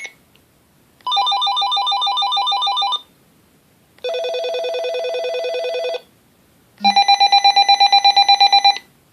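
Uniden cordless phone handset playing its ringtones one after another: three electronic trilling rings of about two seconds each, separated by short gaps, each at a different pitch. The last one pulses fast and is the loudest.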